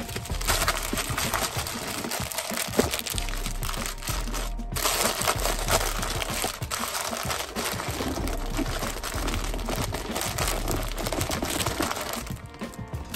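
Background music under loud rustling and crackling handling noise from the camera phone being moved and rubbed close to its microphone, with a brief break about four and a half seconds in.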